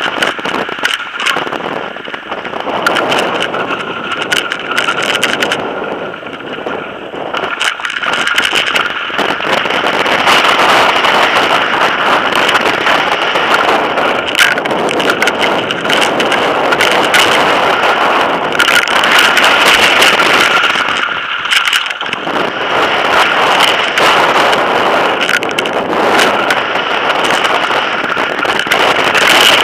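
Wind buffeting the microphone and tyres rolling fast over dirt and gravel on a Marin X-Trail 6.7 mountain bike riding downhill, with frequent rattles and knocks from the bike over rough ground. The noise eases briefly twice, when the pace drops.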